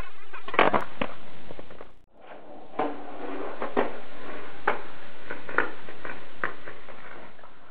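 Skateboard on concrete: a few sharp clacks as a trick is landed, then, after a cut, the wheels rolling along a sidewalk with a clack about once a second over a steady hiss.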